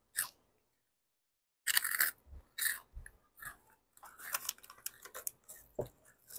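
Crunching bites of a cheese-ring snack, then the crinkle of a plastic snack bag as hands dig into it over the last couple of seconds.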